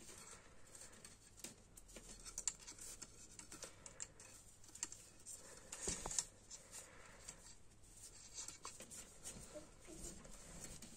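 Faint, irregular clicking and scratching of knitting needles and yarn as stitches are knitted, with a louder knock about six seconds in.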